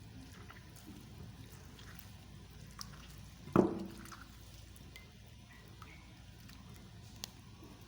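Hands squeezing pounded sugi-sugi leaves in a bowl of water to press out their juice, with small scattered wet clicks and one louder thump about three and a half seconds in.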